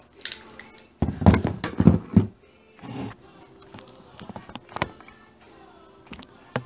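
Steel target stand rattling and clanking, its hanging steel plates jangling on their rods as it is handled: a quick run of clanks near the start, a louder cluster between about one and two seconds in, then lighter scattered clinks.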